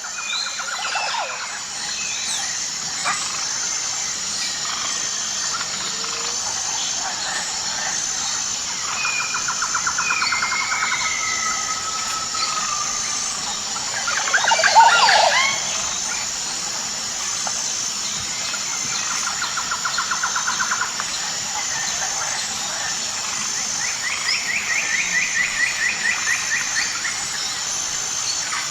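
Tropical jungle ambience: a steady high insect drone with an evenly pulsing chirp, overlaid by birds calling in trills and gliding whistles. The loudest moment is a burst of calls about halfway through.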